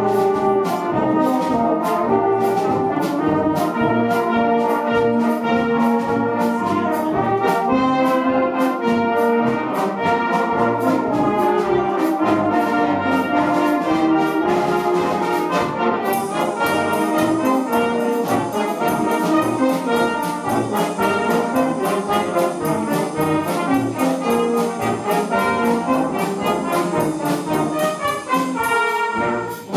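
Brass band playing a lively piece, trombones, cornets and horns in harmony with a drum kit keeping a steady beat. The playing dips briefly near the end before going on.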